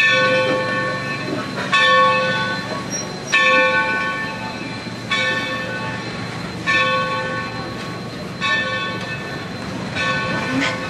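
Mikado steam locomotive's bell ringing steadily, seven even strokes a little under two seconds apart, each ringing out before the next, over the low rumble of passenger cars rolling on the rails.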